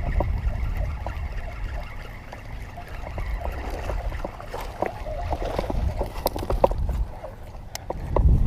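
Water trickling and gurgling, with a low rumble and scattered sharp clicks.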